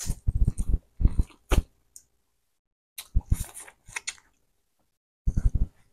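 Close-miked mouth sounds of eating a boiled egg soaked in Cajun butter sauce: wet smacking and slurping in three short bursts, with silent gaps between.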